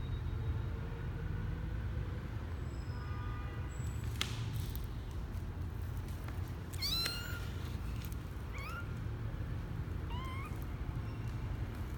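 Newborn kitten, about twelve days old, meowing: three thin, high-pitched mews, the first the longest, then two shorter ones.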